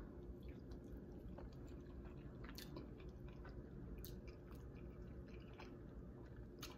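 A person chewing a mouthful of taco with an Impossible Burger filling: faint, with scattered small wet mouth clicks.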